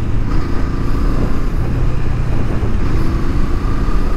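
Honda CL500's 471 cc parallel-twin engine running steadily as the motorcycle is ridden, mixed with wind and road noise.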